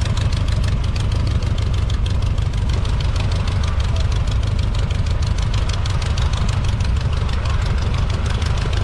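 Vintage air sled's engine idling steadily: a constant low drone with a fast, even beat.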